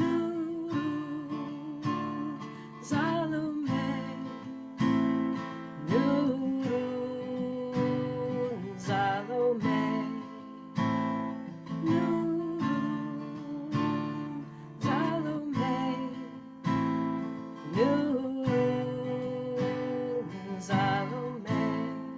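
Acoustic guitar strumming a repeating chord pattern under a sung devotional chant, the voice sliding up into long held notes.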